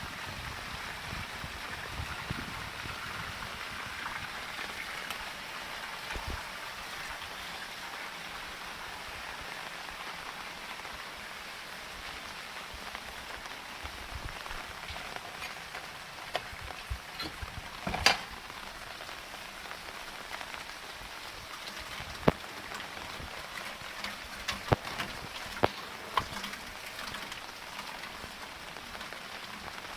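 Steady rain from Hurricane Harvey falling and pattering on surfaces, with sharp individual drops or drips striking now and then: the loudest about halfway through and a cluster more in the second half.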